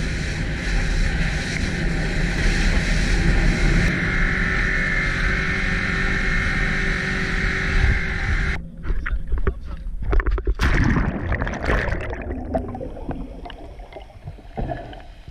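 Steady rushing noise aboard a rigid inflatable boat: engine, wind and water against the hull. About eight and a half seconds in it cuts off into a splash as a scuba diver rolls backwards into the sea, followed by muffled underwater bubbling of the diver's exhaled air.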